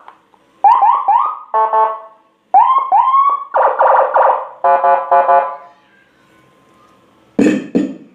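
Electronic siren unit blasting a sequence of short effect tones: three quick rising chirps, a steady buzzy tone, two rising whoops, more steady blasts and a rapid stepped stutter. After a pause it gives a short, deeper blast near the end.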